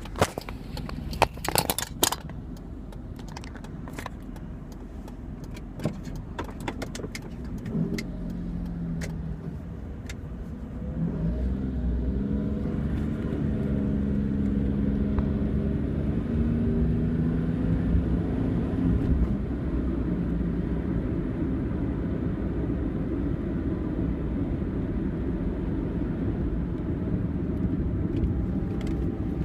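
Car engine pulling away and accelerating, its pitch rising, then steady road and tyre noise. A few sharp clicks and knocks in the first couple of seconds.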